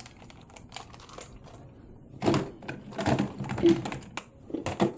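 Hard plastic toys clattering and knocking together as hands rummage through plastic storage bins: scattered faint clicks at first, then a denser, louder clatter from about two seconds in.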